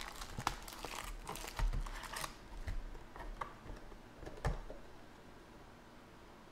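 Foil-wrapped Panini Contenders trading card packs crinkling and the cardboard box knocking as the packs are pulled out of the box and stacked on a table. A quick string of rustles and clicks thins out after about four and a half seconds.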